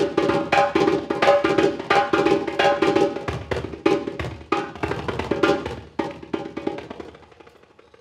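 Hand drum played with bare hands in a fast rhythm of sharp, ringing strokes; the playing dies away about seven seconds in.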